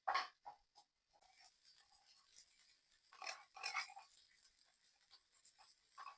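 Boiled meat frying in oil: a faint, steady sizzle, with short scraping or crackling sounds near the start and a louder cluster about three seconds in.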